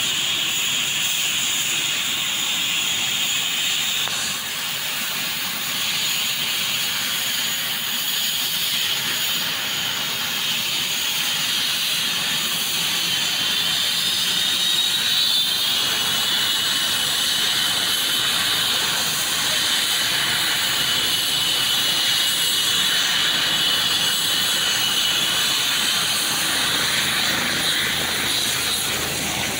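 Eurocopter EC135 twin-turbine helicopter running on the ground with its rotor turning before lift-off. A steady high turbine whine sits over a rushing hiss, and the whine shifts up in pitch about halfway through as it spools up.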